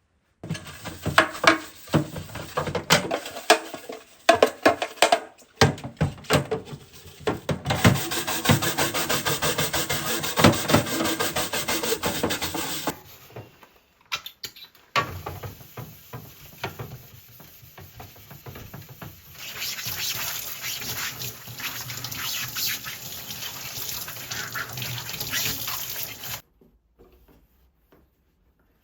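Water running from a kitchen sink tap as things are washed, in two long stretches, with knocking and clattering of items being handled at the start.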